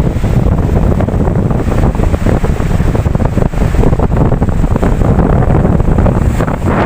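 Ocean waves washing and breaking, heard under a heavy, uneven rumble of wind buffeting the microphone.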